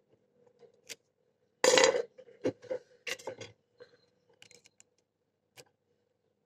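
Small metallic clicks and clinks of a pick and tension wrench working an old Titan padlock, with a louder, short metal clatter about two seconds in and a handful of sharper clicks just after it.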